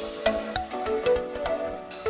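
Background music: a melody of short pitched notes over light, regular percussion clicks.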